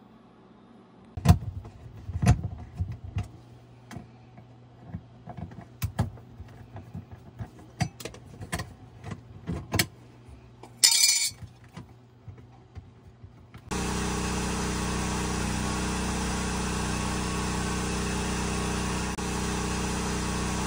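Clicks, knocks and rattles of hands and tools working the wires in a metal electrical junction box, over a faint low hum. About two-thirds of the way in, a loud, steady machine drone with a low hum cuts in suddenly and runs on unchanged.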